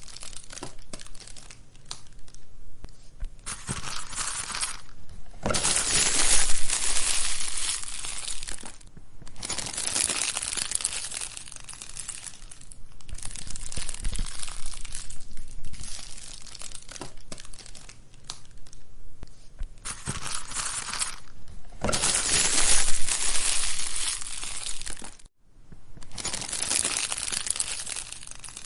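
Wood fire crackling and popping, a dense crackle that swells and eases every few seconds. It cuts out for a moment near the end.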